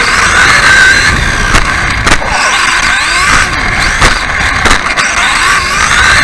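Radio-controlled off-road buggy heard from on board, its motor whining and swooping up and down in pitch with the throttle. Several sharp knocks come from the chassis landing jumps and hitting bumps.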